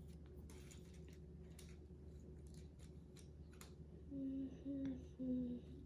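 Faint clicks and light rattles of plastic LEGO bricks being picked through and handled. Near the end, three short hummed notes follow one after another.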